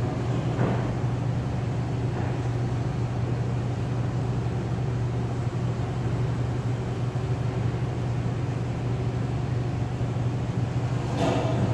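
Steady low machine hum with a faint hiss over it, unchanging throughout.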